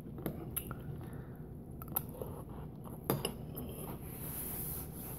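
Metal spoon clinking and scraping against a large ceramic bowl, with a few sharp clinks, the loudest about three seconds in, and chewing between them.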